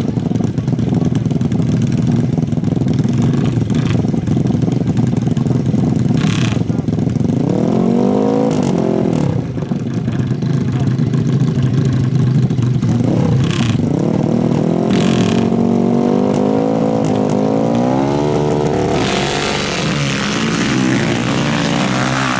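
Four-stroke 450 ATV engines running loudly, with the revs swelling and dropping a couple of times and then climbing steadily for several seconds, as in a drag-race launch. A rushing noise rises near the end.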